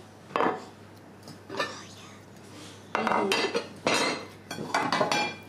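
A spoon stirring a thick, creamy cranberry and whipped-topping mixture and scraping against the sides of a bowl: a couple of separate scrapes, then a quicker run of them in the second half.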